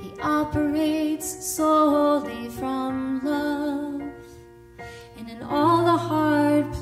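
A woman singing a slow, tender melody to her own Yamaha keyboard accompaniment. The voice pauses briefly about halfway through while the held chords carry on, then resumes over a low bass note.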